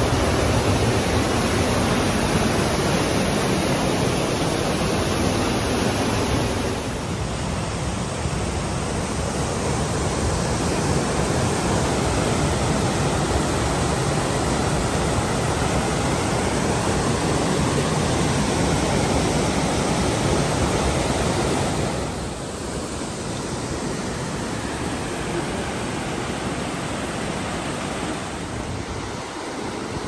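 Rushing whitewater of the Sinks, a cascade on the Little River, pouring over boulders as a steady hiss. The level drops a little about seven seconds in and again at about twenty-two seconds.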